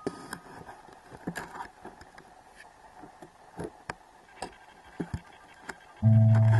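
Faint, irregular clicks and ticks over a low hiss. About six seconds in, music with sustained pitched notes starts loudly.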